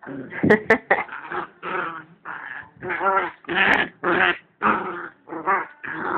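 Two dogs tussling at close range: a quick, continuous run of short growls and yips, about two a second, with a few sharp clicks in between.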